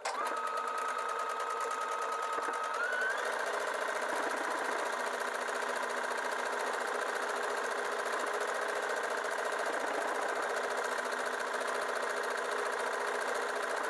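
Brother Innov-is VQ4 computerized sewing machine stitching an automatic buttonhole with its buttonhole foot: a steady motor whine with rapid needle ticking, rising slightly in pitch about three seconds in. It stops on its own at the end, the sign that the buttonhole is finished.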